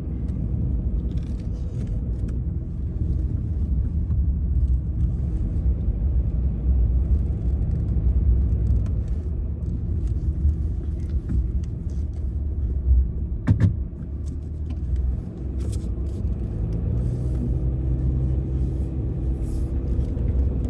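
Vehicle driving, heard from inside the cab: a steady low rumble of engine and road noise, with a sharp knock about two-thirds of the way through.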